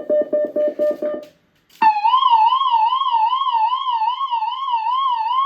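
A rapid string of short electronic pips, the activation pips of a WB1400 warning-system demonstrator, for about the first second. After a short gap a loudspeaker starts a warbling electronic warning tone, rising and falling about three times a second, the simulated public attack warning.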